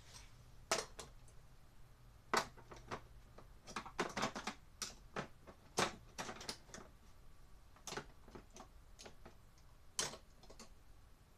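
Irregular sharp clicks and clacks of screwdrivers and small hand tools being handled and put away, with a quick run of clicks about four seconds in.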